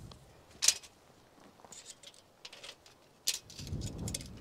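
Metal tape measure being pulled out and handled, giving scattered sharp clicks and rattles, the loudest about a second in and another near the end. A low rumble follows near the end.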